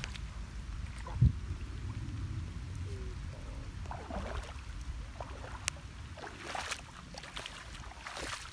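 Water sounds: a low steady rumble with scattered small knocks and splashes, and one heavier thump about a second in.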